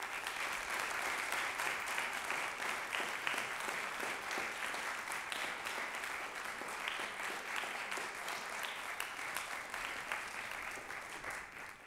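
Audience applauding: a dense, steady patter of many hands clapping that starts abruptly, eases slightly near the end and then cuts off.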